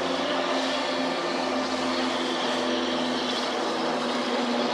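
Motor of a radio-controlled model race boat running at speed on the water, a steady engine drone with a noisy wash of spray behind it.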